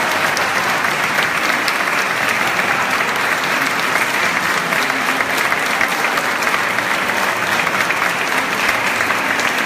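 Audience applauding steadily at the end of an operatic aria, a dense, even patter of many hands clapping.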